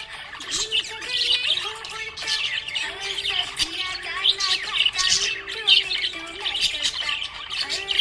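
Budgerigars chirping and warbling, a dense stream of quick, overlapping chirps.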